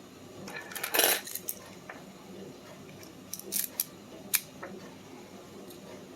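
Small metal lock parts clinking and clattering as a pin-in-pin dimple lock is disassembled. The loudest clatter comes about a second in, followed by a few sharper clinks around three and a half to four and a half seconds.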